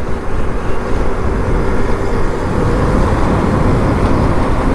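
KTM 390 Duke's single-cylinder engine running at a steady cruise, with wind and road rush on the bike-mounted microphone.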